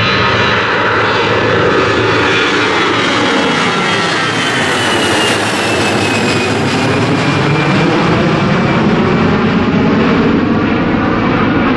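Airbus A321 twin-engine jet airliner at take-off thrust, climbing out and passing overhead with a loud, steady roar. Its engine whine slides down in pitch as it goes over, about halfway through.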